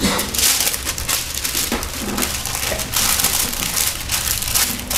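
A sheet of waxed paper crinkling in several bursts as it is handled and spread out by hand.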